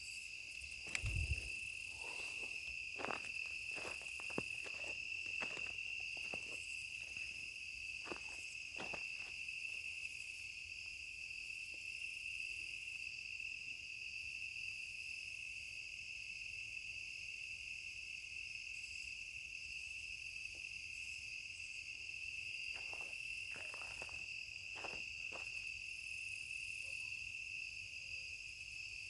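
A steady chorus of night insects trilling without a break, with scattered faint clicks and a soft low thump about a second in.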